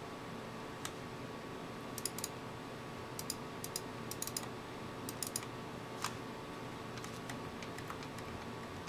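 Scattered light clicks, some in quick clusters of two to four, over a steady hum with a few faint held tones.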